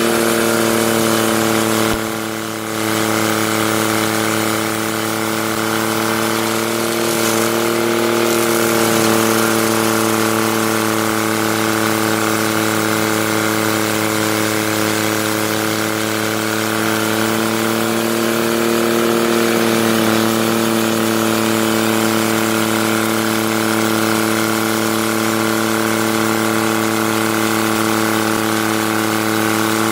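Engine of a heavy machine running steadily at constant speed, its level dipping briefly about two seconds in.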